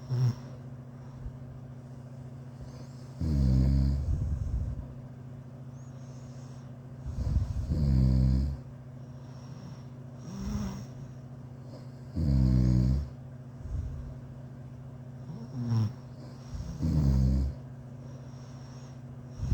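A person snoring in deep sleep: four loud, rattling snores come about every four to five seconds, with softer breaths between them. A steady low hum runs underneath.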